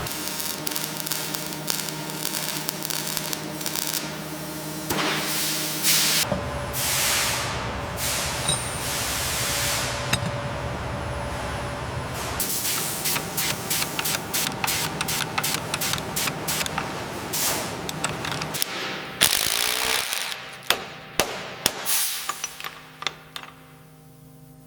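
Workshop tool sounds: repeated bursts of spraying hiss, then a run of quick clicks and clatter. The clicks turn sharper and sparser near the end.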